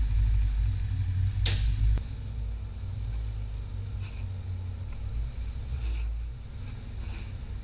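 Porsche 964's air-cooled flat-six running as the car rolls slowly, a low rumble picked up by a camera mounted low beside a wheel. It eases off after about two seconds, with a sharp click just before.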